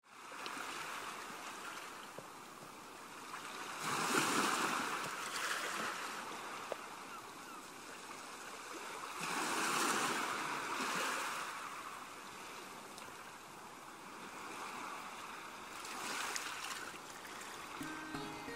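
Sea waves washing in, swelling and falling away three times about six seconds apart.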